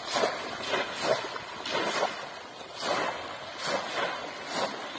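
Repeated splashing in shallow river water as bamboo polo fish traps are plunged down through the surface and legs wade through it, roughly one splash a second.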